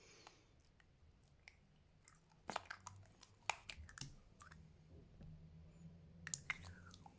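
Fluffy slime being squeezed and worked by hand, giving faint, scattered sticky pops and crackling clicks, most of them in the middle and later part.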